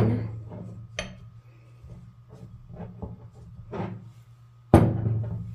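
Ceramic teapot being handled on a table: light clinks and taps of china, with a sharp click at the start, another about a second in, and a louder knock near the end.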